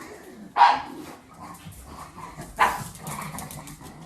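A dog barking twice, about two seconds apart.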